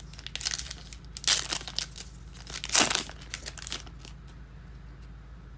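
Plastic trading card pack wrapper crinkling and being torn open, in several short bursts, the loudest about three seconds in.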